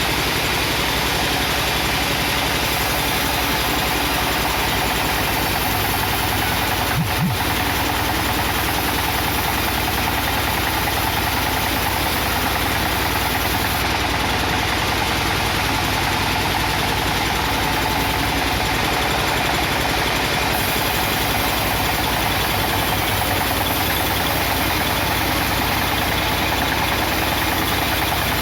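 A machine's engine running steadily at an even level, with one brief knock about seven seconds in.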